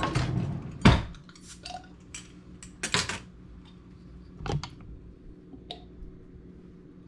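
Metal utensils clattering in a kitchen drawer and sharp clicks and knocks as a glass beer bottle's cap is pried off with a bottle opener. The loudest knock comes about a second in, another cluster about three seconds in, then a few lighter clicks.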